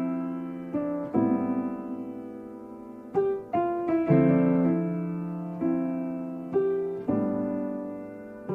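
Background piano music: slow chords struck every second or so, each ringing and fading away.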